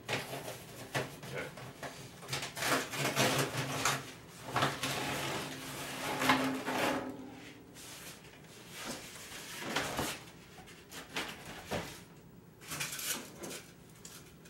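Foam and cardboard packing being pulled out of a Camp Chef DLX pellet smoker's metal barrel: irregular scraping, rustling and knocking, busiest in the first half and sparser towards the end.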